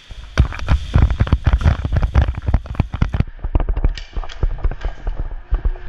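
Airsoft rifles firing in rapid, uneven bursts of sharp cracks and clicks, an exchange of fire that goes on for about five seconds, turning duller about three seconds in.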